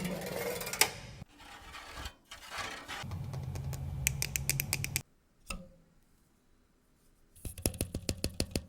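Handling noises on a PC case: scraping and rustling, then runs of rapid clicking, about eight clicks a second.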